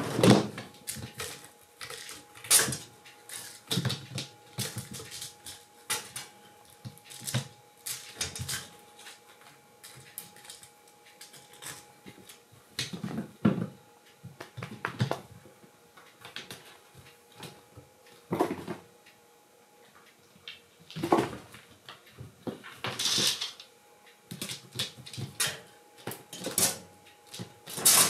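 Kittens at play: irregular thumps, scrabbling and rustling as small paws and claws catch at a cloth curtain, land on the floor mat and scramble over a cloth-covered sofa. The knocks come in uneven clusters, with a longer rustle about two-thirds of the way through.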